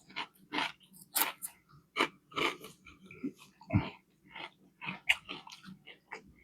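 Close-up chewing of a fried fish sandwich: irregular wet mouth clicks, smacks and soft crunches, two or three a second.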